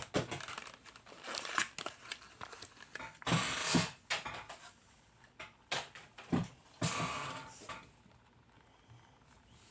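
Hands unpacking and handling a diecast model car in its plastic and cardboard packaging: irregular clicks, scrapes and crinkling rustles. The loudest rustle comes about a third of the way in and another a little past two-thirds, with only faint handling near the end.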